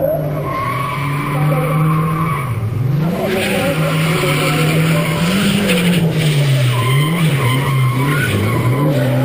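Nissan S14 Silvia drifting: its engine note rises and falls again and again as the throttle is worked through the slide, with tyres squealing from about three seconds in.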